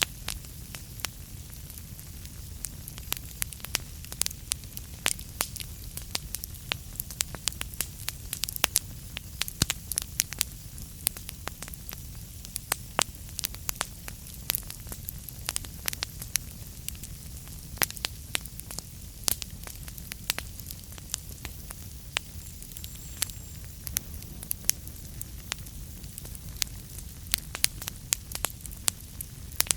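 Wood fire burning in a fireplace: frequent irregular sharp crackles and pops over a steady low rumble of the flames.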